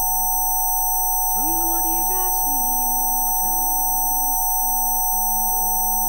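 Rife-frequency sound-therapy audio: several steady pure sine tones held at fixed pitches, layered over slow ambient music whose held notes change every second or so.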